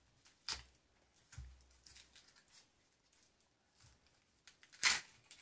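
Dry outer layer of an onion being peeled off by hand: faint, sparse papery crackling and tearing, with one short sharp snap near the end.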